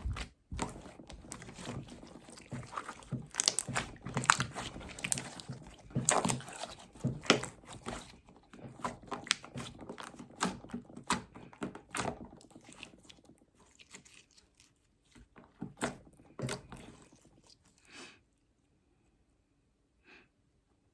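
Slime being squeezed and kneaded by hand, giving irregular wet clicks and pops that thin out and stop about eighteen seconds in.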